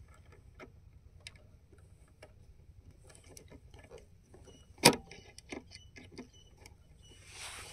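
Scattered light clicks and ticks of a screwdriver and wire being worked at a motor starter's screw terminals, with one sharp click about five seconds in.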